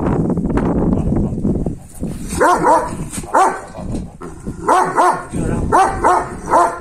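Kangal shepherd dog barking: after about two seconds of low growling, a run of seven or eight loud barks, mostly in quick pairs, each rising and falling in pitch.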